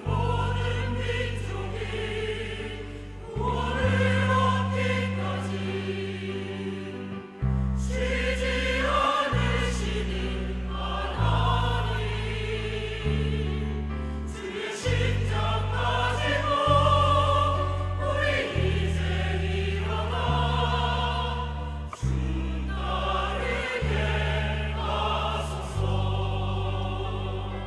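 A church choir singing an anthem in parts over sustained low accompaniment notes that change every second or two.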